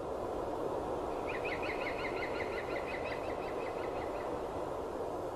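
A bird singing a rapid trill of short repeated notes, several a second, for about three seconds, over a steady hiss of outdoor ambience.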